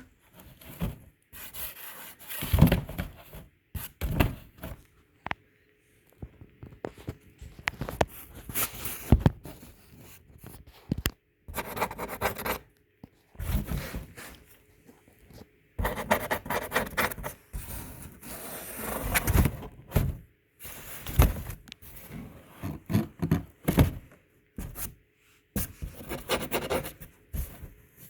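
Irregular scratching, scraping and rubbing in a box, in short bursts with brief pauses and a few sharp clicks, as a kitten scrabbles about inside it.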